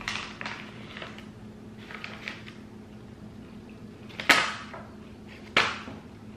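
Plastic snack pouch crinkling and rustling in short bursts as it is picked up and handled, with soft rustles in the first couple of seconds and two loud crackles about four and five and a half seconds in.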